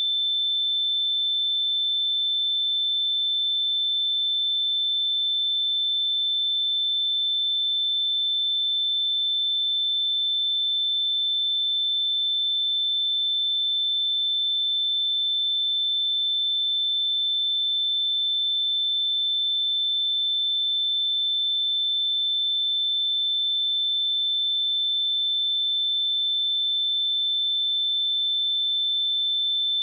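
A pure 3538 Hz sine-wave test tone, high-pitched and held perfectly steady at one level, with no other sound.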